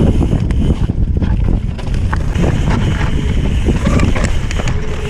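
Wind buffeting the microphone over the rumble and rattle of a mountain bike rolling down rocky singletrack, with scattered clicks and knocks from the tyres and frame over stones.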